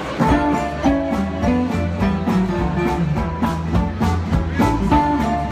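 A live small band starts playing just after the start: saxophone, archtop guitars, upright bass and drum kit in an upbeat tune with a steady beat.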